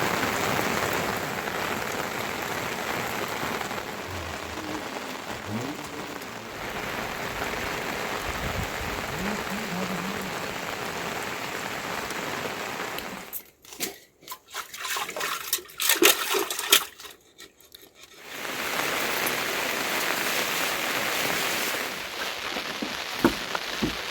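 Steady rain hiss. About halfway through it cuts out for roughly five seconds of scattered sharp clicks and knocks, then the rain hiss returns.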